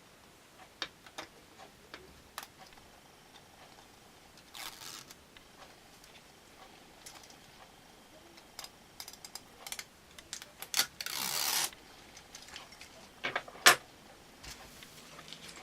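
Protective backing being peeled off double-sided adhesive tape on an iPad 2 frame, with handling of small parts. Scattered small clicks and taps mix with short scratchy peeling rasps. The longest rasp lasts just under a second, about eleven seconds in, and a sharp click near the end is the loudest.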